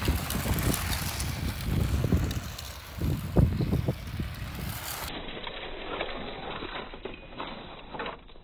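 Brushless WPL C24 RC truck driving over loose gravel: a noisy crunch and rumble that surges loudest in the first half, with wind on the microphone. A few sharp knocks come in the second half as the truck crashes and ends up on its side.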